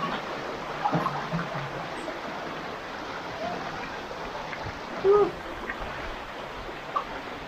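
Steady rush of a shallow river flowing and splashing over rocks, with a brief louder sound about five seconds in.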